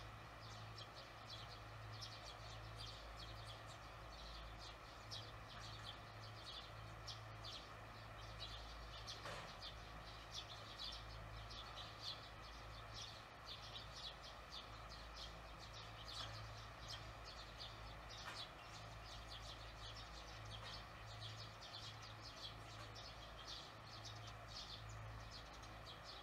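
Swallows twittering at the nest: a faint, busy stream of short, high chirps, several a second, with a low hum underneath that comes and goes.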